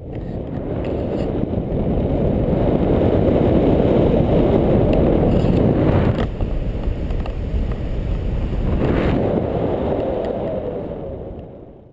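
Loud wind noise from airflow over the camera microphone during a tandem paraglider flight: a steady rushing that builds over the first couple of seconds and fades away near the end.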